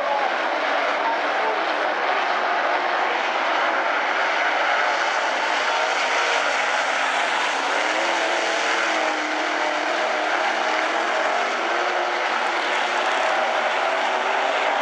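Dirt-track modified race cars' engines running hard at race speed: a loud, continuous engine noise from several cars, their pitches rising and falling as they speed up and back off through the turns.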